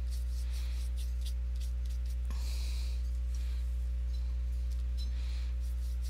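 A steady low hum runs throughout, with a few faint soft strokes of a paintbrush brushing paint onto paper; the clearest stroke comes about halfway through.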